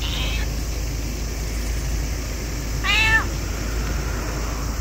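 Small black cat meowing: a faint short cry at the start, then one loud meow about three seconds in that rises and falls in pitch, over a steady low background rumble.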